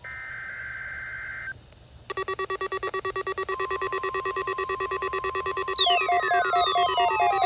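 NOAA Weather Radio SAME header, a buzzy two-tone data burst lasting about a second and a half. After a short gap a loud electronic alert of several stacked tones starts, pulsing about five times a second, and a falling sweep joins it near the end.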